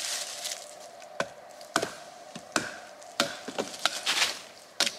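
Benchmade Leuku 202 knife blade chopping into a piece of beech wood: several sharp, irregularly spaced wooden strikes, with a few short scraping swishes between them.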